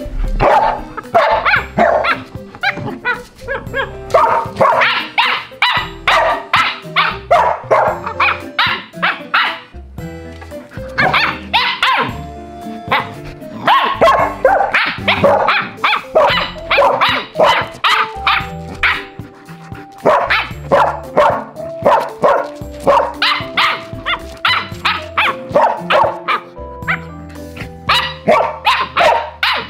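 Dog barking in rapid runs of short barks with brief pauses, over background music with sustained tones.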